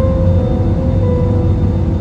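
Slow background music with long held notes, over a steady low rumble of airliner engine and cabin noise from an Airbus A320.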